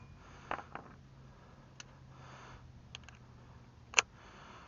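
A few faint clicks and light knocks of tools being handled, with one sharper click about four seconds in, over a faint steady low hum; the impact wrench is not running.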